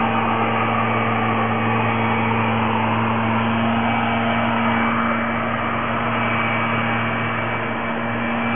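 Steady hiss with a constant low electrical hum underneath. Nothing starts, stops or changes.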